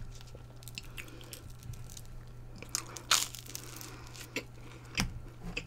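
A person eating: quiet chewing with a few short crunches, the loudest about three seconds in, over a faint steady low hum.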